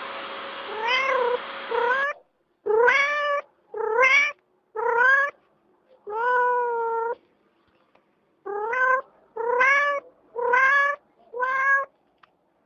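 A cat meowing over and over, about ten meows with short gaps, each rising in pitch, one in the middle drawn out longer. A steady hiss underlies the first two meows and stops about two seconds in.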